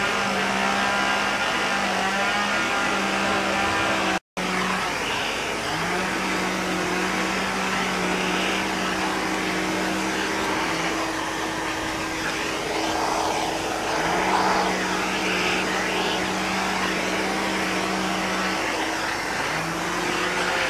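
Two-stroke chainsaws running at high revs. One revs up at the start and runs in stretches of several seconds, cutting in and out, while a second saw holds a steady, higher pitch. The sound drops out for a moment about four seconds in.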